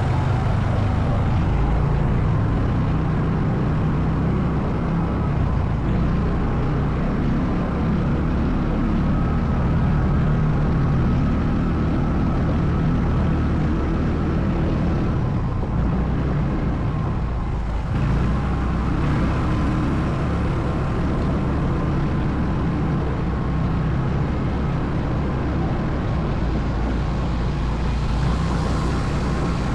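ATV engine running steadily while under way, with a brief dip in level a little over halfway through.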